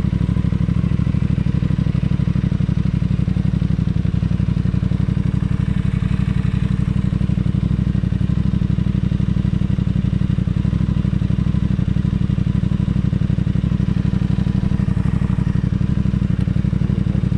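Aprilia RS660's parallel-twin engine idling steadily through an aftermarket Mivv exhaust: a loud, even low pulsing with no revs.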